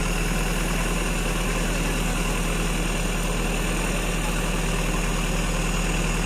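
Heavy diesel engine idling steadily, with an even low hum and no revving.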